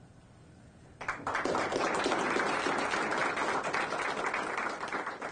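Audience applauding, a dense crackle of many hands clapping that starts about a second in after a quiet moment.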